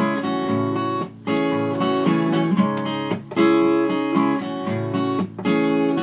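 Steel-string acoustic guitar strummed without singing, the chords ringing and changing about once a second.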